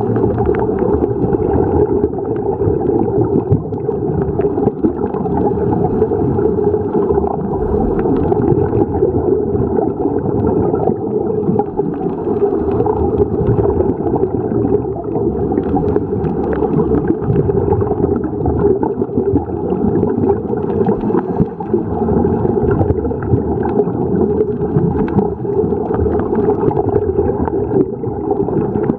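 Steady, muffled underwater rumble with gurgling from scuba divers' exhaled regulator bubbles.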